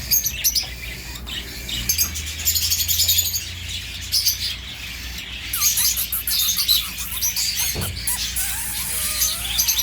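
Small birds chirping and twittering, with many short high chirps overlapping throughout.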